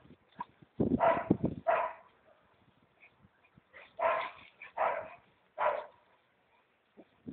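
A dog, an American Staffordshire terrier, barking: a quick cluster of barks about a second in, then three single barks about a second apart.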